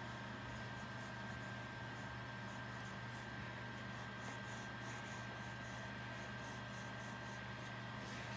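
Graphite pencil scratching on sketchbook paper in a run of short, repeated sketching strokes. Beneath it runs a steady low hum with a faint high whine.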